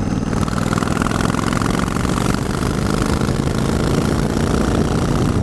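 Yamaha Virago XV1100 V-twin engine running steadily under way in top gear, pulling cleanly with no misfire, coughing or spluttering now that the regulator rectifier has been replaced.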